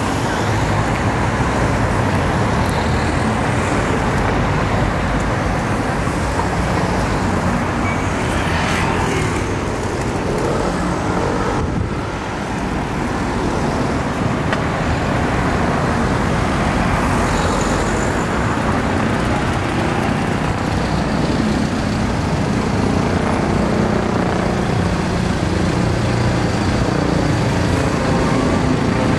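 City street traffic: cars and other road vehicles passing in a steady wash of noise, with a tram drawing near toward the end.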